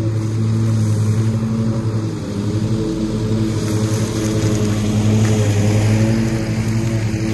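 Cub Cadet zero-turn riding mower's engine running steadily at mowing throttle with a constant hum, growing a little louder about two-thirds of the way in as the mower comes close.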